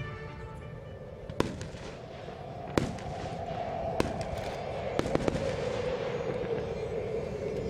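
Aerial firework shells bursting in a series of sharp bangs: one about a second and a half in, the loudest near three seconds, another at four seconds, and a quick pair around five seconds.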